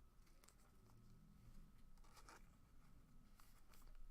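Near silence, with a few faint clicks and rustles of trading cards being handled.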